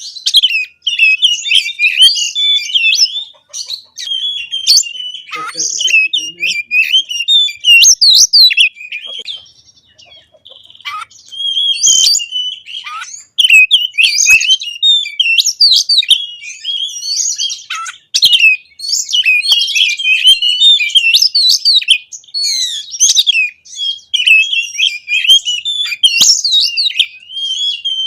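Oriental magpie-robin (kacer) singing continuously: a fast, varied stream of whistles, trills and harsher mimicked notes, pausing briefly about ten seconds in.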